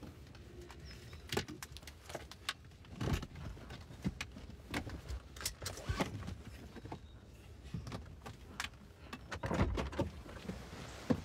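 Irregular knocks, clicks and rattles inside a moving car over a low rumble.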